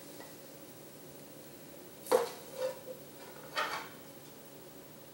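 Wooden spatula scooping fried rice out of a stainless steel pan into a small bowl, knocking against the dishes: a sharp knock about two seconds in, a softer one just after, and a third about a second later.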